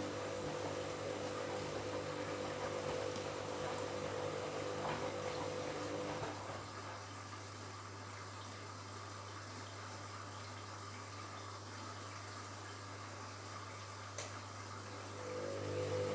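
Front-loading washing machine taking in water, a steady mains hum over water rushing into the drum; the fill stops about six seconds in and starts again near the end, as the bed linen soaks up water and the machine tops up the level. A single click comes shortly before the fill restarts.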